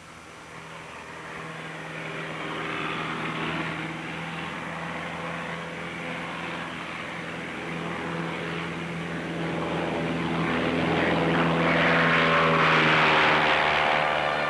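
Piper PA-28 Cherokee's single piston engine at full power on the takeoff roll and climb-out, a steady propeller drone that grows louder as the plane comes closer, loudest near the end.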